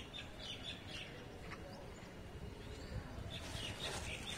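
Birds chirping faintly, with a few short calls near the start and a denser run of chirps about three seconds in, over a low steady outdoor background.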